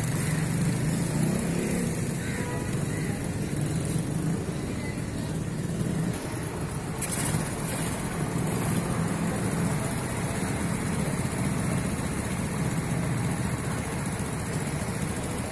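A road vehicle's engine running steadily, with a brief sharper noise about seven seconds in.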